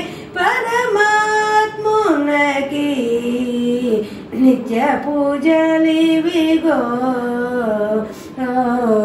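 A woman singing a slow devotional song solo and unaccompanied, holding long notes that slide between pitches, in phrases broken by short breaths.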